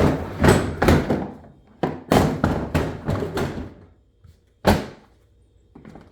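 Hard plastic Ryobi LINK tool boxes knocking and thunking as one is set onto another and seated, a run of irregular knocks followed by one sharp thunk later on as the box snaps into place.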